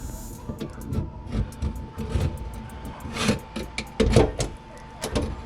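Metal tools clicking, scraping and knocking against the rusted snap ring and mounting hardware of a garbage disposal's sink flange, as the ring is pried at. The loudest knocks come about three and four seconds in.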